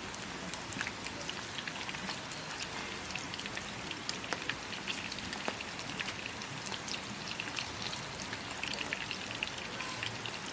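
Steady rain falling, with many separate drops ticking irregularly on a surface.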